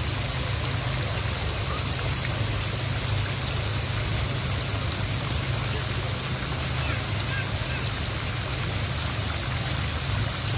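Fountain jets splashing steadily into the water of a pool basin, a continuous even hiss of spray over a low steady rumble.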